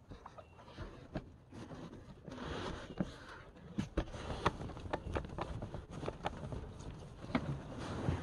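A cloth towel rubbing and dabbing against the inside of a pickup's rear sliding window glass, with irregular light taps and scrapes, over rain tapping on the truck cab.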